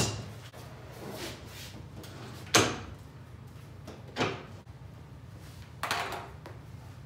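Folding treadmill's metal frame clanking and knocking as it is lowered from upright and set down on a concrete floor: four separate knocks, the loudest about two and a half seconds in, over a low steady hum.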